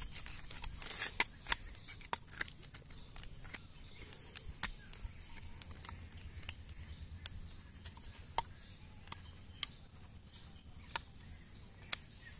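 Steel piston rings clicking against an S195 diesel piston as they are worked into the ring grooves by hand: sharp metallic ticks at irregular intervals, about a dozen in all, with light rustling during the first two seconds.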